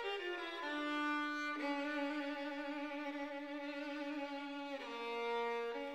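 Background music: a single bowed string line playing slow, long held notes with a slight vibrato, stepping mostly downward.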